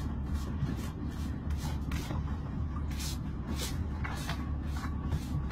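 Hand tool scraping parasites and barnacle growth off a sea turtle's head in short, rasping strokes, about two a second, over the steady low hum of a running engine.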